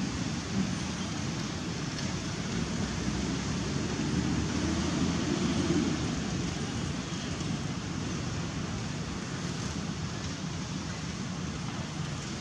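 Steady rushing outdoor background noise with a low rumble, swelling slightly about halfway through.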